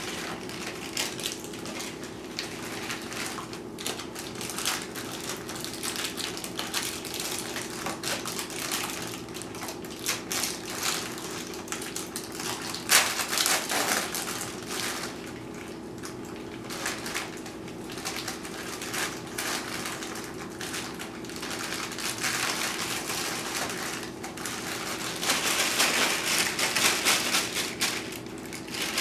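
Plastic zip bag and Ritz cracker sleeve crinkling as the crackers are handled and crushed, with a dense crackling that grows louder near the end. A steady low hum runs underneath.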